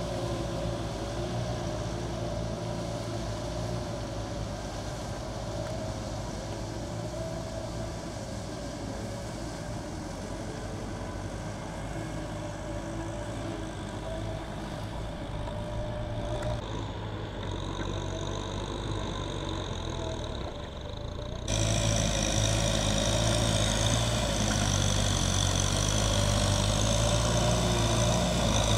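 Kubota M6040S tractor's diesel engine running steadily under load as it plows a flooded rice paddy, suddenly louder and closer about three-quarters of the way through.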